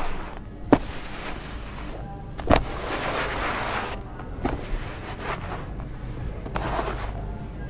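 Hands digging through and pouring dry, gritty sand-cement mix in a plastic tub: grainy rustling and trickling as handfuls fall back onto the heap. A sharp click comes under a second in and a louder thud about two and a half seconds in.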